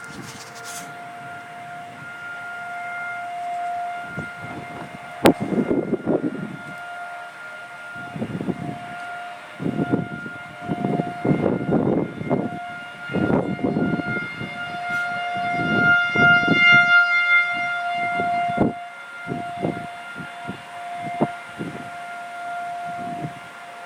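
Outdoor tornado warning siren sounding a steady, unchanging tone that swells louder and fades back twice: the public alert going off for a severe storm. Irregular bursts of low noise come and go over it.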